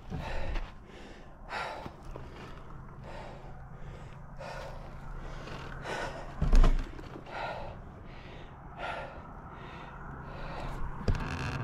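A cyclist breathing hard while riding, an exhale about every second and a half, with a loud low thump about six and a half seconds in.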